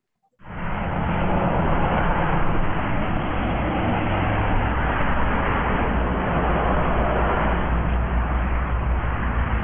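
Steady engine rumble and road noise inside a moving bus, cutting in abruptly about half a second in.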